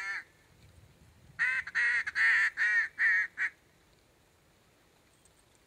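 Mallard duck call blown in a quick run of about seven loud quacks in two seconds, with a single quack just before.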